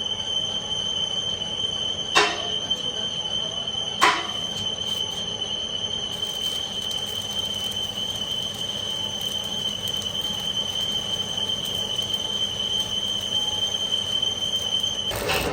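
Heavy boring machine cutting a steel pipe, the tool on the steel giving a steady high-pitched squeal over the machine's running noise. Two sharp metallic clanks ring out about 2 and 4 seconds in, and the squeal stops just before the end.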